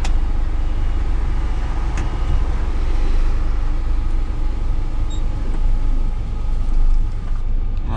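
Steady low engine and road rumble of a Scania S500 truck under way, heard from inside the cab.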